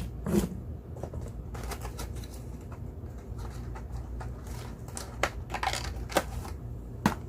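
Scattered light clicks and taps of cosmetic cases and boxes being handled, over a low steady hum.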